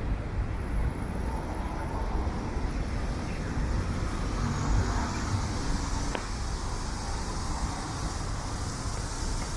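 City street traffic: a steady wash of passing vehicles, heaviest in the low end, with one short click about six seconds in.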